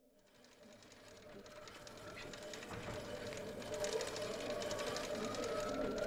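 A dense crackling buzz with a steady hum fades in from silence and grows steadily louder, while a thinner whine slowly rises in pitch.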